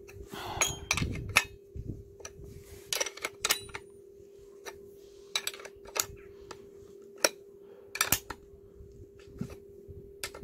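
Irregular sharp metal clicks and clinks of a flat steel wrench against a chainsaw's centrifugal clutch, over a faint steady hum.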